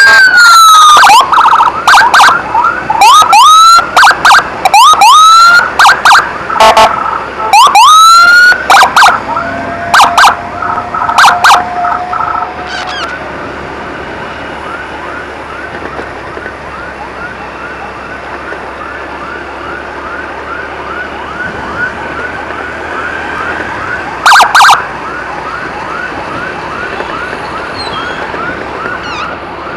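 Emergency vehicle sirens moving through traffic. For the first twelve seconds or so they are loud, with rising whoop sweeps and short sharp blasts. After that a quieter, fast-repeating warble runs on, with one more short loud blast later.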